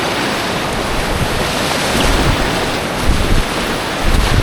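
Rushing whitewater of a creek rapid heard from an inflatable kayak running it, with wind buffeting the microphone. A few heavier low thuds come about three and four seconds in.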